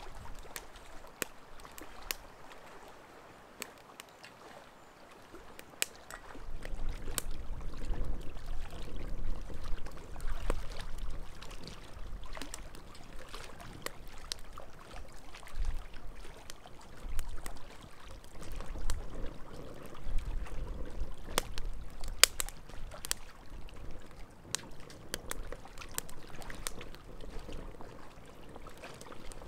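Wood fire crackling and popping in an ammo can stove, sharp pops scattered throughout, with wind rumbling on the microphone from about six seconds in.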